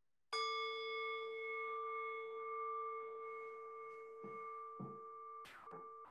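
Metal singing bowl struck once with a wooden striker, ringing with a low hum and several higher overtones that slowly fade. A couple of soft handling knocks and a brief scrape near the end as the bowl is touched.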